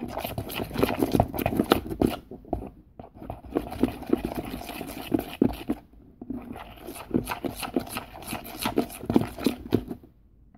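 Hand mixing tinted glue in a plastic bowl: quick, sticky squelching and clicking, with two short pauses about three and six seconds in.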